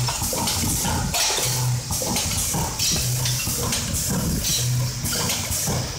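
Semi-automatic bag packaging machine running in a steady cycle: a short low hum about every second and a half, with clicks and the rustle and rattle of sealed plastic bags of small metal parts.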